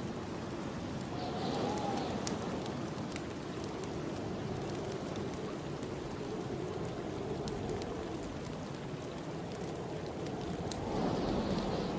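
Snowstorm wind blowing steadily, swelling in gusts about a second in and again near the end, with scattered crackles and pops of a wood fire.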